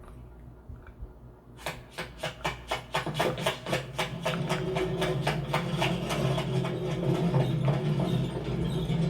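A machine starting up: after a low hum, rapid clicking begins about one and a half seconds in and speeds up into a steady clatter, while the hum underneath grows louder.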